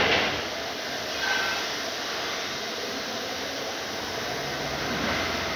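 A steady rushing noise with no clear pitch, moving air or ambient hiss picked up while walking, with a short louder bump at the very start.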